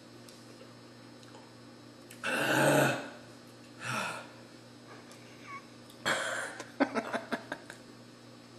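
A man's loud burp about two seconds in, then a shorter, softer one about a second later. Near the end comes a quick run of clicks.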